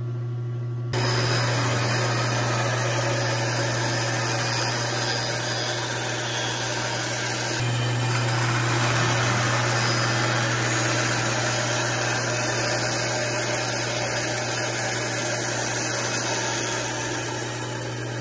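Oliver bandsaw running and cutting a wooden fence picket held in a jig: a steady motor hum under a constant rushing noise, which comes in loud about a second in.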